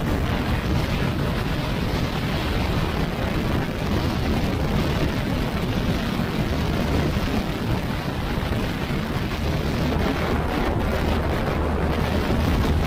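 Yamaha NMAX scooter ridden at road speed: a steady, loud rush of wind over the microphone mixed with engine and road noise.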